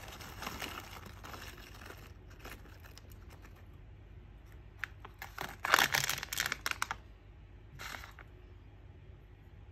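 Plastic snack bag crinkling as puffed fried-rice crackers slide out and clatter into a small ceramic dish. A few scattered clicks follow, then a loud flurry of crinkles and clicks a little past halfway, and one short crinkle near the end.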